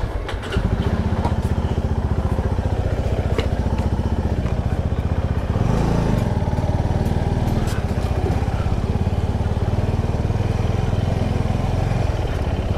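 Motorcycle engine catching about half a second in, then running with a steady, fast pulsing beat.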